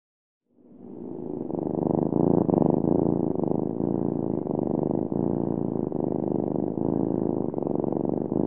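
Domestic cat purring, a steady rapid pulsing that fades in about half a second in and is at full strength by about two seconds in.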